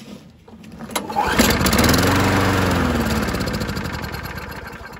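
6.5 HP Tecumseh OHV lawnmower engine pull-started on carb cleaner sprayed into the carburetor, with no gas in the tank. It catches about a second in, speeds up, then slows and fades away near the end as the spray burns off.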